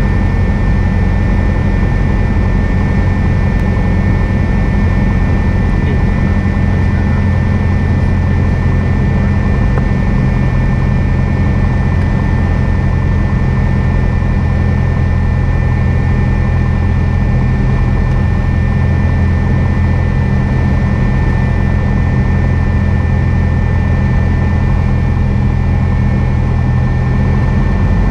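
Cessna 172's piston engine and propeller heard from inside the cabin as a loud, steady drone, with a thin steady high whine over it. The engine note changes slightly near the end.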